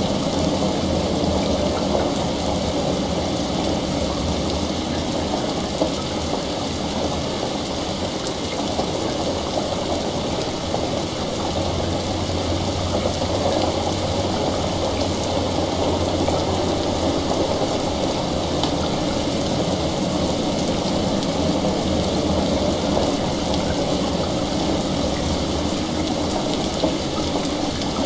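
Steady heavy rain from a layered rain-and-water ambience mix. A low rumble swells up in the middle and fades again.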